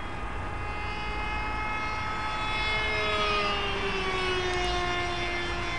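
Brushless electric motor and pusher propeller of an RC plane whining at high throttle on a high-speed pass. It grows louder, then drops in pitch about three seconds in as the plane flies past.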